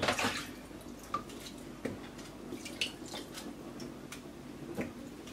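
Wet okra pods being handled in a plastic colander in a steel sink and moved into a pot: a short rustle at the start, then scattered small clicks and drips.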